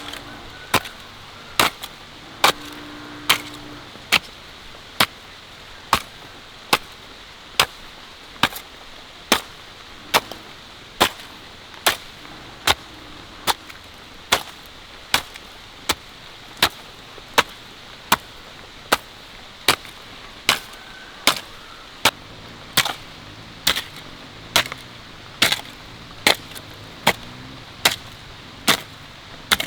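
Sharp, evenly spaced blows, a little more than one a second, in a steady working rhythm.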